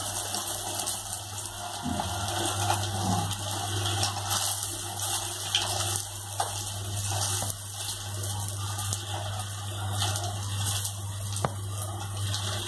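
Potato-stuffed bread roll deep-frying in hot oil: a steady sizzle and crackle of bubbling oil, with a low steady hum underneath.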